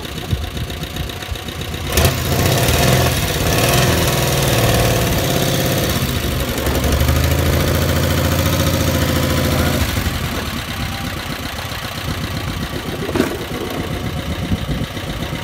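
The VW Vanagon Syncro's 2.1-litre water-cooled flat-four (Wasserboxer) engine running, heard at its exhaust. About two seconds in there is a sharp knock and the engine gets louder for about eight seconds, then settles back to a steady idle.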